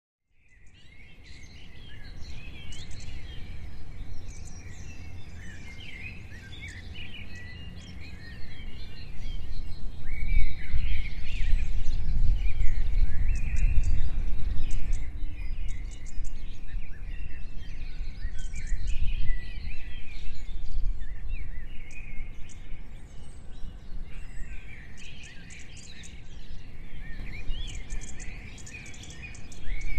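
Many songbirds chirping and trilling, over a low rumble that swells in the middle and eases off again.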